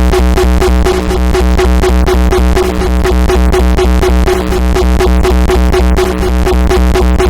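Loud uptempo hardcore electronic music with no vocals: a fast, steady beat over a continuous heavy bass and a repeating synth pattern.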